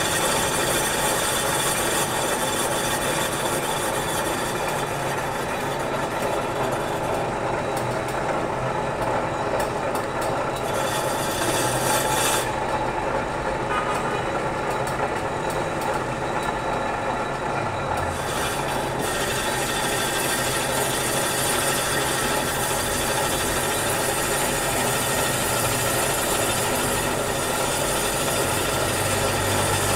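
Metal lathe running, turning a large steel air shaft with a cutting tool: a steady machine hum with the hiss of the cut. The high hiss drops away twice for a few seconds near the middle.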